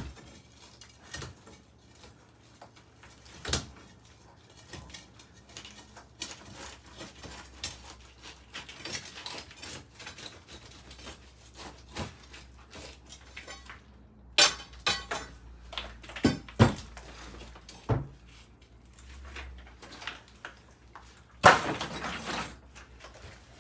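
Scattered knocks and clinks of broken concrete chunks being pried loose and handled, with a longer scraping clatter near the end.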